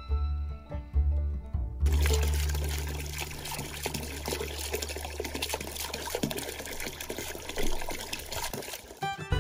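Background music for about two seconds, then a stream of water running from a hose fitting and splashing into a partly filled plastic bucket, with a low steady hum beneath it; music comes back near the end.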